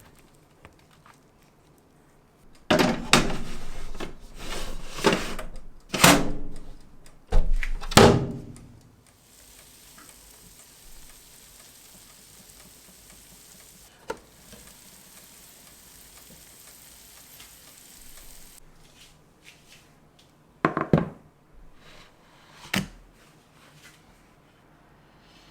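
Kitchen handling noises: a run of sharp knocks and thunks, then a steady hiss for about nine seconds, then two more knocks near the end.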